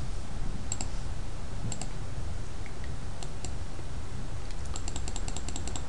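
Computer mouse clicking: a few scattered clicks, then a quick run of repeated clicks near the end, as on a scroll-bar arrow. A steady low hum runs underneath.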